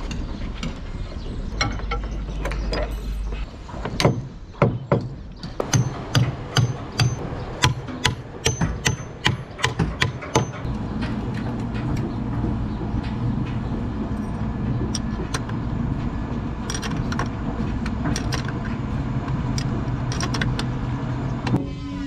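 Woodwork on a boat's bulwark: a run of sharp hammer blows, about one to two a second, some with a brief metallic ring, then a steady low mechanical drone for the rest.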